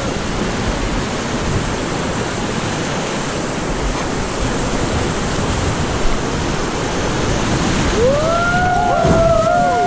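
Steady rushing of river white water, with wind buffeting the microphone. Near the end a long, high, wavering call rises and falls over it.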